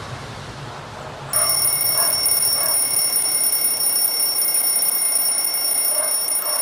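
Phone alarm going off about a second in: a loud, steady, high-pitched electronic tone that keeps sounding.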